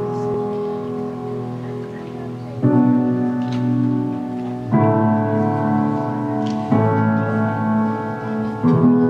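Slow piano music: a new chord struck about every two seconds and held until the next.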